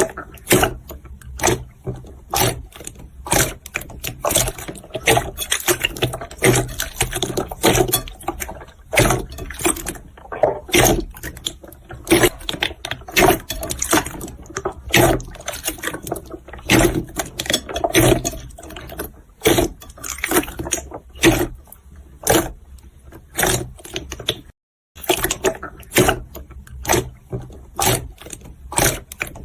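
Slime being squished and played with, making a dense, irregular run of clicks and pops, with a brief break about 25 seconds in.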